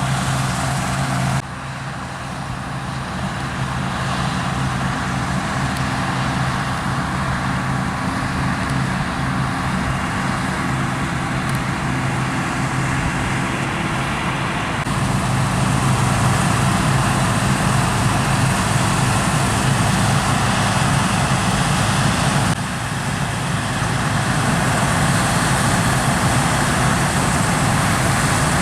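Diesel engines of combine harvesters and tractors working a wheat field: a steady drone with a deep hum. The sound changes abruptly about a second and a half in, again about 15 seconds in and once more about 22 seconds in, as shots change.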